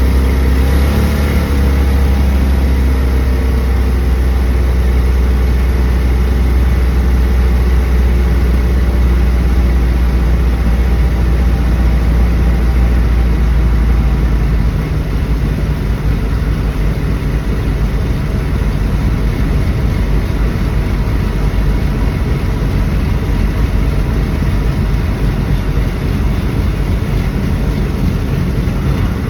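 A 1974 Dodge Dart running, a loud steady low drone. About halfway through the deep drone drops away and the sound turns rougher and noisier.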